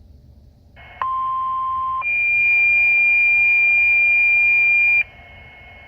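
Two-tone sequential paging alert over a fire dispatch radio channel: a lower steady tone for about a second, then a higher, louder tone held for about three seconds, with radio hiss behind. The alert stops sharply, leaving hiss and a faint steady tone.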